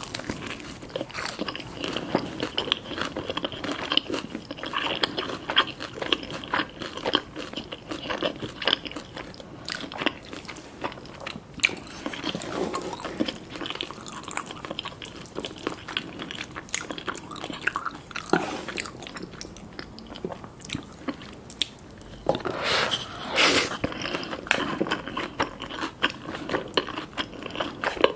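Close-miked eating: crisp bites and crunchy chewing of Korean fried chicken, with a constant crackle of small crunches and a louder burst of crunching about three quarters of the way through.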